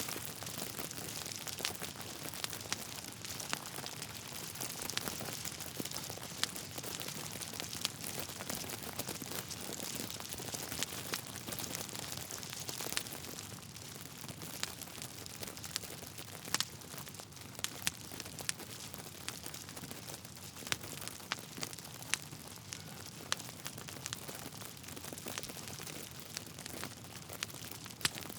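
Wood fire burning in a fireplace: logs crackling, with many small sharp pops and a few louder ones over a steady hiss.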